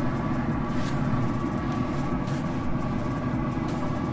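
Steady mechanical hum of a Traeger pellet grill running at cooking temperature, its fan giving a faint even whine over a low rumble.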